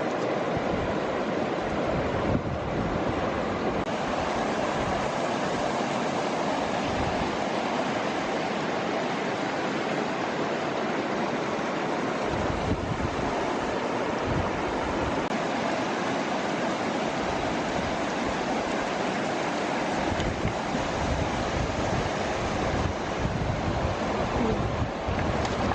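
Steady rushing outdoor noise with irregular gusts of low rumble.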